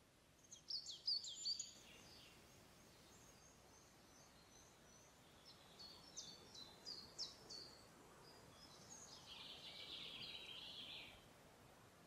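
Songbirds singing: a quick burst of sharp, high descending notes about half a second in, a run of clear notes around the middle, and a dense buzzy trill lasting about two seconds near the end, over a quiet background.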